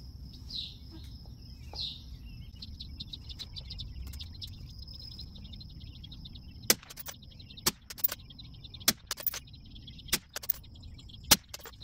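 Suppressed rifle shots: a string of sharp cracks about a second apart through the second half, with lighter clicks between them. Birds chirp before the shooting starts.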